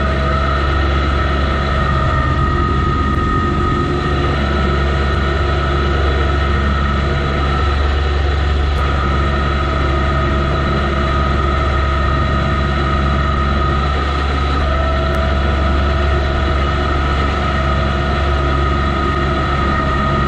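John Deere 2025R compact tractor's three-cylinder diesel engine running steadily while driving a front-mounted 54-inch two-stage snow thrower through light snow, with a steady high-pitched whine over the engine.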